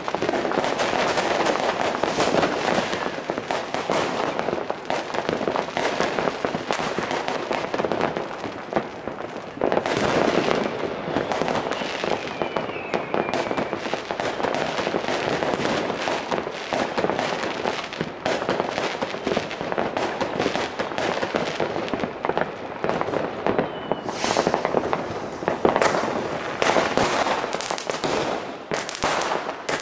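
New Year's Eve fireworks: a dense, continuous barrage of overlapping bangs and firecracker crackle. A short whistle rises over it about twelve seconds in and again near the end.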